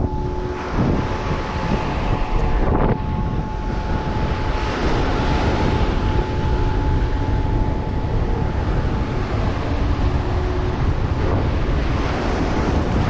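Wind buffeting the microphone, with waves breaking on the shore mixed into it; a thin steady tone runs underneath.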